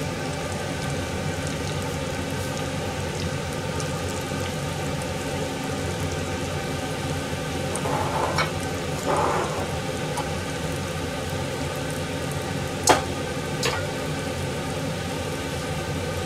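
Karaage pieces deep-frying in a stainless steel pan of hot oil, with a steady sizzle of bubbling oil. It grows briefly louder about eight seconds in, and there are two sharp clicks about two-thirds of the way through.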